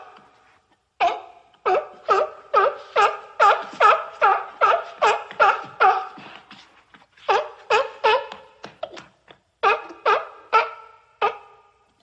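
Seal barking: a rapid series of short calls, about two or three a second, with a brief pause partway through before they start again.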